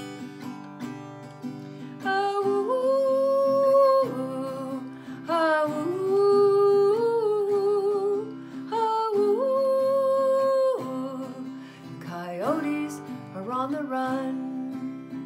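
A woman sings long wordless held notes that waver slightly, over a strummed acoustic guitar. About twelve seconds in, her voice slides quickly upward.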